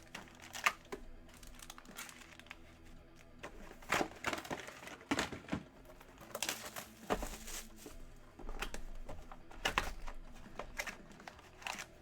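Crinkling and rustling of trading-card packaging being handled and opened, with scattered short clicks and rustles.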